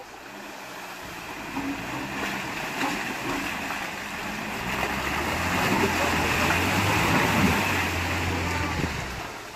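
Engine of a 4x4 off-road vehicle running under load as it drives close by, growing louder to a peak and fading near the end, with a rushing hiss over it.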